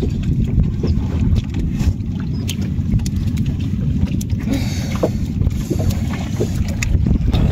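Wind buffeting the microphone as a steady low rumble, with scattered small clicks and rustles on top.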